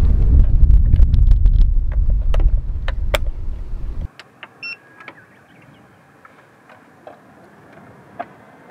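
Low wind rumble on the microphone with a few sharp plastic clicks as an electric hot sandwich maker is closed. About four seconds in it cuts to a much quieter stretch with a brief high tone and a few faint clicks as a plug and cord are handled at a portable power station.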